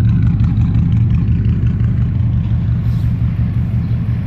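1971 Oldsmobile 707 Jetaway limousine's V8 engine idling with a steady, even low drone.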